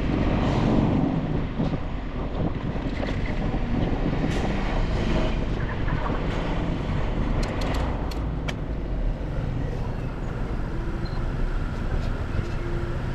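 Steady rumble of riding a bicycle, with wind buffeting the action-camera microphone and tyres rolling on the road. A few sharp clicks come about eight seconds in.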